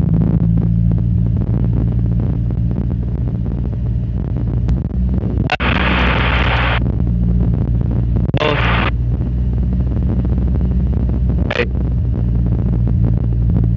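Cessna 152's four-cylinder Lycoming engine and propeller running steadily at run-up power, heard from inside the cockpit. Two short bursts of hiss come about five and a half and eight and a half seconds in, and a brief click comes near the end.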